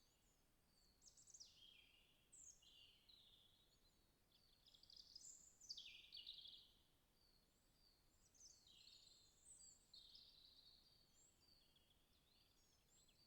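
Faint birdsong: small songbirds singing short, high phrases that fall in pitch, one after another and sometimes overlapping, over a light background hiss.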